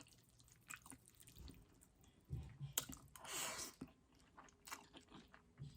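Faint close-up chewing of spaghetti: soft wet mouth clicks and small thumps, with a short hissing sound a little after three seconds in.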